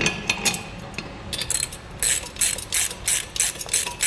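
A hand socket ratchet snugging a bolt into a steel bracket, its pawl clicking through quick back-and-forth strokes, about three a second. The strokes start about a second in, after a few light metal clinks.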